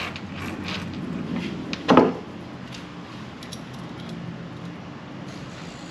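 Light clicks and rattles of small fishing tackle and a pair of crimping pliers being handled on a workbench, with one brief louder knock about two seconds in.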